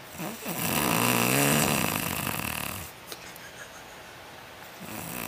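A woman snoring very loudly while asleep: one long snore of about two and a half seconds, a quiet pause, then the next snore starting near the end.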